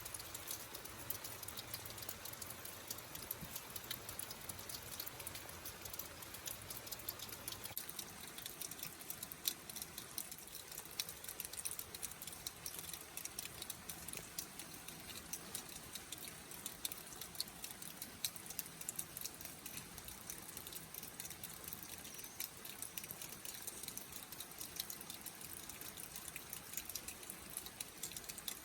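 Wood campfire crackling: a steady stream of small sharp pops and snaps over a soft hiss.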